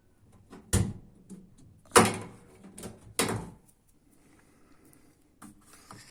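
Washing machine casing and parts being handled during disassembly: three sharp knocks about a second apart, the loudest with a brief ring, then a few lighter clicks near the end.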